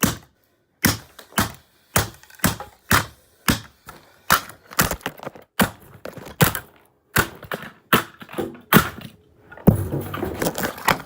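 Repeated hard blows smashing the plastic body of a Dirt Devil Classic race car vacuum cleaner: about twenty sharp impacts at irregular spacing, roughly two a second, running into a denser clatter near the end.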